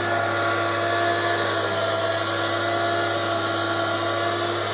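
Tractor-driven chopper mill grinding dry corn stover, running with the tractor's engine: a loud, steady drone with several constant tones.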